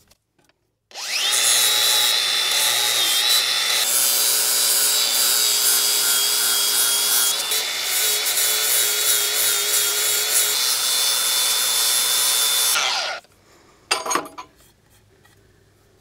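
Small angle grinder with a flap disc spins up about a second in and grinds the burred metal bracket edges that the backhoe seat was catching on. A steady high whine runs over a rough grinding noise, then the grinder winds down near the end, followed by a couple of short knocks.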